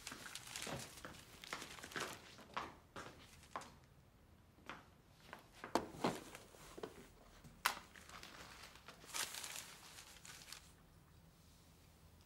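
Irregular rustling and crinkling with a few sharp clicks.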